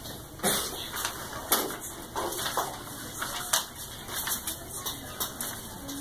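Paintbrush working on a stretched canvas: irregular short scratchy taps and swishes as the brush strikes and drags across the surface.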